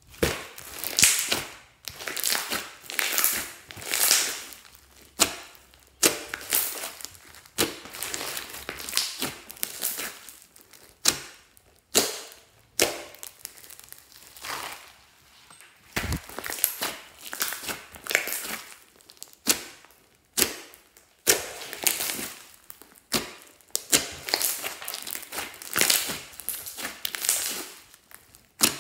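Hands kneading and stretching glossy slime mixed with small foam beads, a wet squishing noise with sharp little clicks as air pockets pop, in repeated strokes about once a second.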